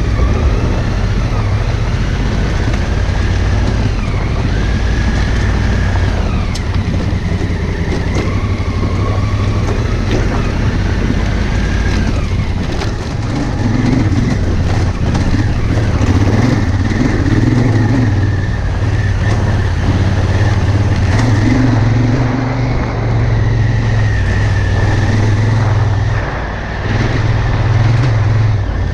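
Honda Africa Twin CRF1000L's parallel-twin engine running steadily on the move, its low note shifting now and then, under a steady rush of road noise.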